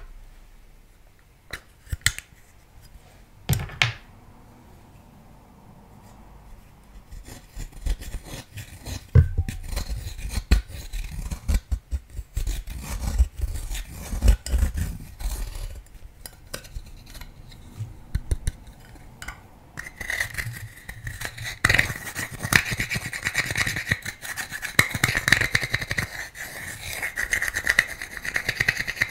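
Pressed eyeshadow being scraped and broken up in its pan with a small pointed tool: a dry, gritty rasping. It starts as a few light taps and turns into steady, harsher scraping about two-thirds of the way through.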